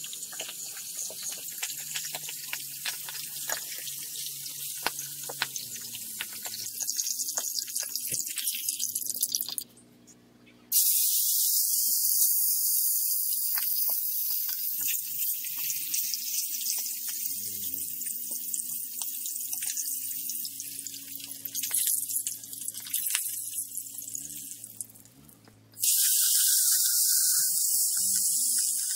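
Fish pieces sizzling and crackling in hot oil in an iron wok, with faint background music under it. The sound drops out briefly twice.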